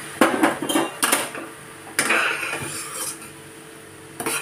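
Metal spoon clinking and scraping against a kadhai while stirring a thin masala gravy that has just had boiling water added. A quick flurry of clinks in the first second or so, then a few single knocks about a second apart.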